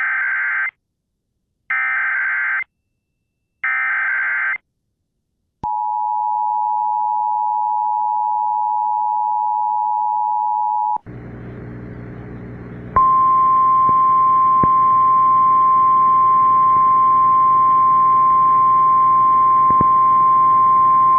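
Emergency Alert System tones for a tornado warning. First come three short warbling bursts of SAME data header, about a second apart. Then the two-tone attention signal holds for about five seconds, and after a brief buzzing hum a single steady weather-radio alert tone comes in about two seconds later and carries on.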